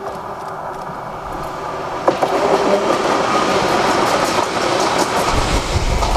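Kotoden Shido Line electric commuter train approaching and passing close by. The noise builds steadily, then its wheels clack over rail joints with a sharp click about two seconds in and a busy run of clicks and rushing after it. A deep rumble comes in near the end as the cars go past.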